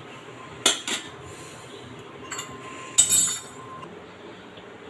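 Light clinks of kitchenware against a glass bowl: one short clink under a second in, and a sharper, louder cluster about three seconds in.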